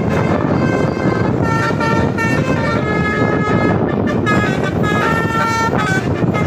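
A bus's multi-note 'telolet' musical air horn playing a quick run of changing notes, over the steady noise of the bus and road.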